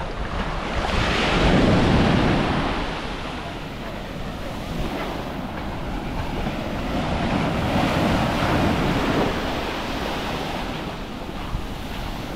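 Small waves breaking and washing up a sandy shore, the surf swelling twice, with some wind on the microphone.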